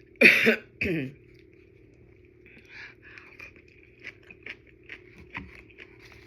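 Two loud burps, the first longer and the loudest, the second shorter about a second in. Then soft, irregular mouth clicks and smacks of eating.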